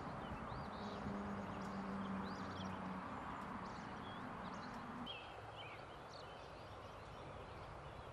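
Birds chirping over a steady outdoor background hiss, with a steady low hum under it that stops abruptly about five seconds in.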